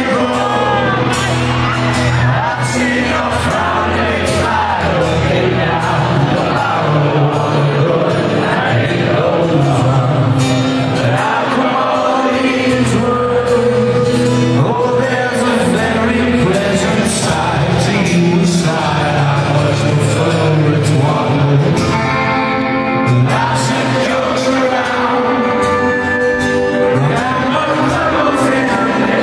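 Live acoustic guitar strummed with a man singing into a microphone, amplified through a large arena, with shouts from the crowd mixed in.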